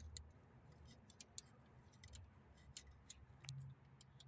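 Near silence: faint, scattered light clicks of hand work on the engine, over a low steady hum.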